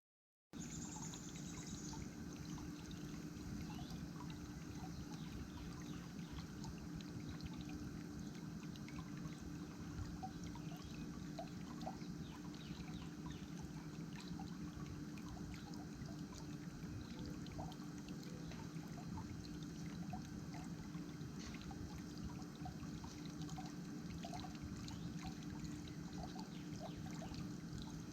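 Water in a bird bath trickling and splashing steadily, with many small drips and a faint low steady hum underneath. The sound starts abruptly about half a second in.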